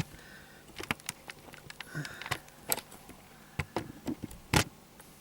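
Scattered light clicks and taps of plastic being handled as the drain-pump filter cap of a Hotpoint Aqualtis washing machine is slowly turned, with one louder knock near the end.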